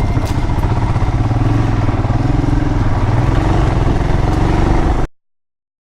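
Royal Enfield Himalayan's single-cylinder engine running steadily with a low, rapid pulsing. It cuts off abruptly about five seconds in.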